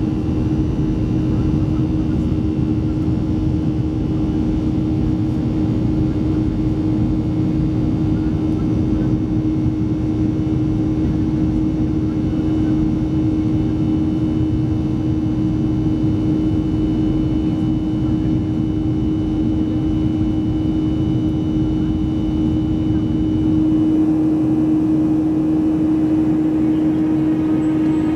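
Boeing 737-300's CFM56-3 turbofan engines heard from the cabin over the wing during the climb after takeoff: a steady loud drone with a strong low hum. Near the end the deep rumble drops away and the drone sounds thinner.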